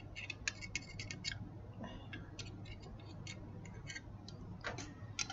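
Light metallic clicks and taps of stainless steel dental instruments against a small metal dish and each other as bone graft is loaded into a bone carrier. A quick cluster of clicks in the first second and a half, then scattered taps, the sharpest near the end.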